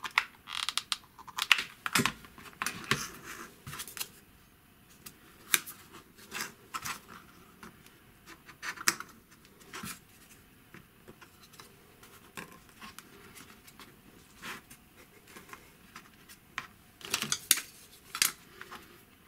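Hands handling 3D-printed plastic track parts and thin wooden strips on a cutting mat: irregular clicks, taps and scrapes, busiest in the first few seconds and again near the end.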